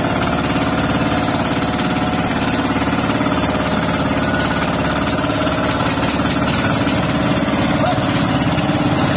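Outrigger fishing boat's inboard engine running steadily, heard up close beside its flywheel, with an even, rapid chugging.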